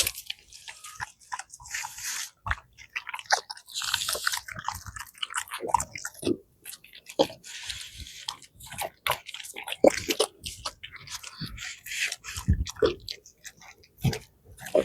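A Rottweiler chewing raw chicken carcass and meat: irregular sharp cracks and crunches of bone between wet chewing noises.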